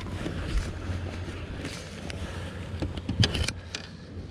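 Steady low hum of the fishing boat's motor, with a short cluster of sharp clicks and rattles about three seconds in.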